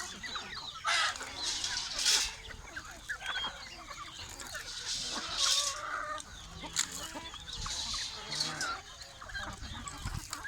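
A flock of chickens clucking and calling over one another, with a few brief noisy rushes about a second and about five seconds in.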